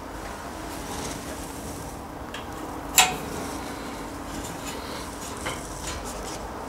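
Quiet handling of a metal bath-screen wall profile against wall tiles, with one sharp click about three seconds in and a couple of fainter ticks.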